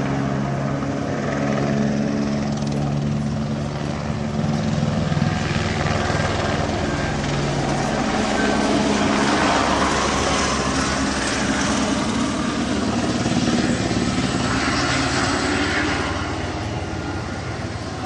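Police helicopter flying overhead: a steady rotor and turbine drone with a low hum, growing a little louder around the middle of the pass and easing off near the end.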